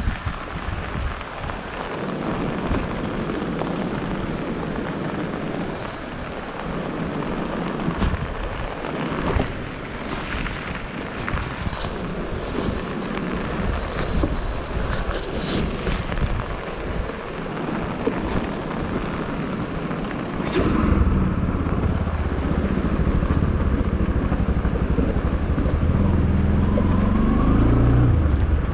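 Motorcycle on the move, with heavy wind noise on the microphone. About twenty seconds in, the engine becomes much louder and steadier, and its pitch rises slightly near the end.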